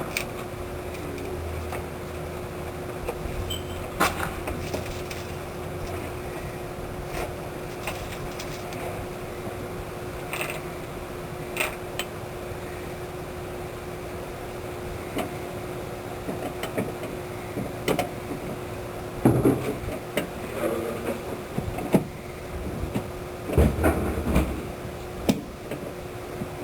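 Scattered knocks and clicks of hard objects being handled over a steady hum. Louder clusters of knocking and rattling come about two-thirds of the way through and again near the end.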